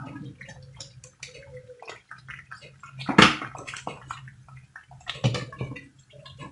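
Wooden spoon stirring thick, bubbling haleem in a nonstick pot: irregular wet squelching and sloshing strokes with a sharper knock about three seconds in. Near the end a glass lid is set down on the pot with a clink.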